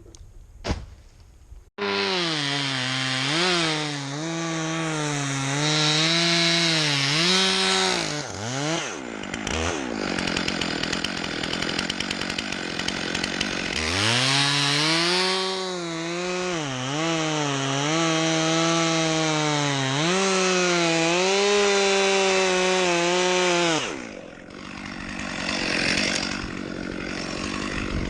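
Two-stroke chainsaw cutting dead birch wood: it is throttled up sharply about two seconds in and runs at high revs, wavering under load. It falls back around eight seconds in, revs up again to cut at about fourteen seconds, and drops to a lower, rougher running near the end.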